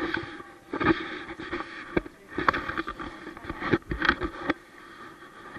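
Rustling, rubbing and bumping on the camera's microphone as it is carried and jostled against a jacket while walking, in irregular bursts with several sharp knocks.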